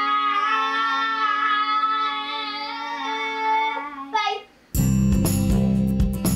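Two children holding out a long, sung 'byeee' together for about four seconds, ending in a quick slide in pitch. After a short gap, instrumental outro music starts with crisp plucked notes.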